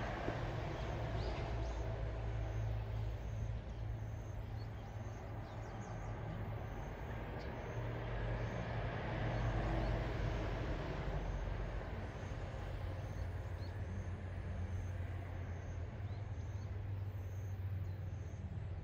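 Steady low rumble of distant road traffic, swelling about nine to ten seconds in, with a few faint, short high bird chirps.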